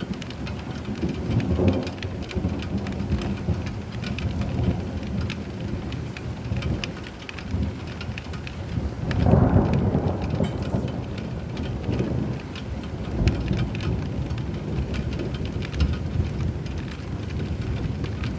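Steady heavy rain with thunder rumbling through it: low rolling swells of thunder, the loudest about halfway through, over the constant patter of drops.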